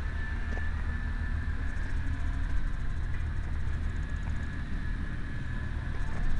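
Caterpillar 953 track loader's diesel engine idling steadily, a low rumble with a thin steady whine above it.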